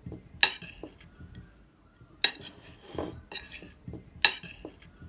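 A spoon clinking against a bowl: three sharp clinks about two seconds apart, with softer knocks in between.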